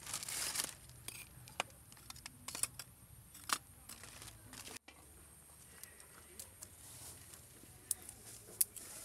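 A plastic bag rustling, then lumps of charcoal clicking and knocking together as they are picked out by hand: scattered light clicks, sparser in the second half.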